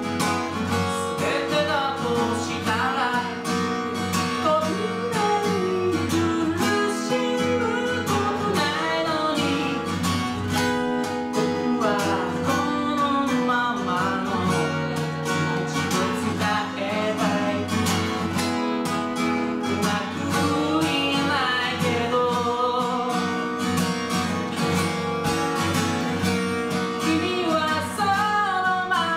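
A man singing a song while strumming an acoustic guitar, with a steady accompaniment of strummed chords under the sung melody.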